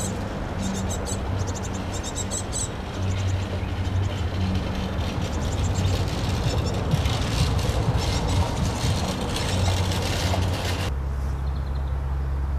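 Outdoor ambience: birds chirping briefly over a steady rumble of traffic. About eleven seconds in the sound cuts abruptly to a steadier low hum.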